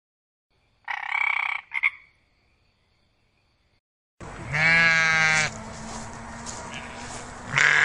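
A frog croaks in two short calls about a second in. After a pause, sheep bleat: one long wavering bleat around the middle and another starting near the end.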